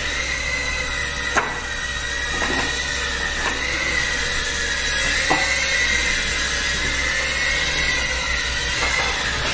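Small FPV racing quadcopters buzzing with a high-pitched motor whine that wavers in pitch as the throttle changes, over a steady hiss. A sharp tap comes about a second and a half in.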